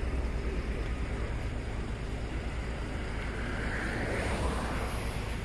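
Wind rushing over the microphone with a steady low rumble while travelling along a road; a hiss swells and fades about three to five seconds in, like a vehicle going by.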